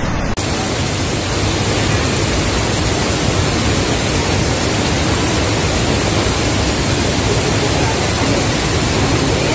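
Rushing floodwater torrent pouring down a hillside: a loud, steady, even roar that becomes brighter about half a second in.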